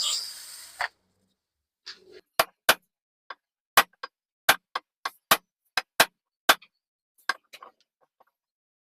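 Sharp clicks and taps of small hard parts being handled, about fifteen at irregular intervals. A hissing noise cuts off just under a second in.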